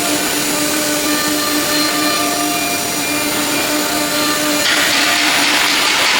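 Spindle of an ELE-1530 nesting CNC router running with a steady whine, cutting wood; about two thirds of the way in, a louder, harsher hiss comes in as the bit bites harder into the material.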